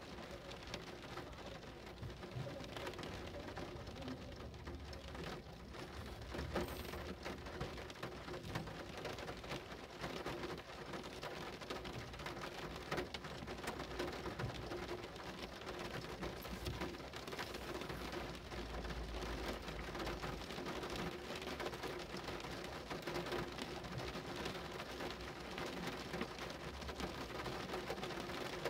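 Steady rain, with many individual drops striking in quick succession over a continuous hiss. There are a few low rumbles, one more noticeable just past the middle, and a faint steady hum underneath.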